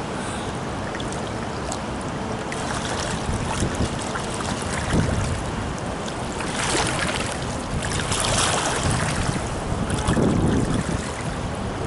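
Pool water splashing and churning as a swimmer does breaststroke frog kicks in a glide, over a steady wash of water noise, with louder splashes in the second half.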